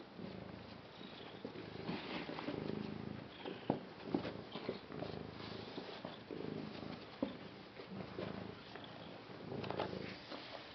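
Tabby cat purring while being stroked, the purr rising and falling in repeated swells. A few brief sharp clicks sound over it.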